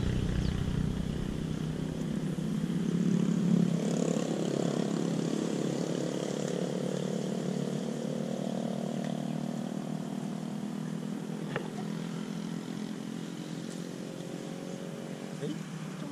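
Engine of a passing motor vehicle droning steadily, strongest at the start and slowly fading away. A single sharp click about eleven and a half seconds in.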